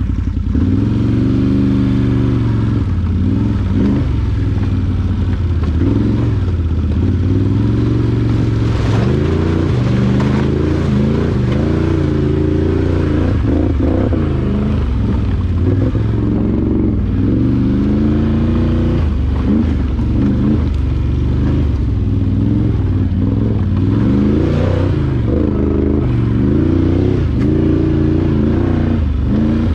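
ATV engine running under constantly changing throttle, its pitch rising and falling every second or two.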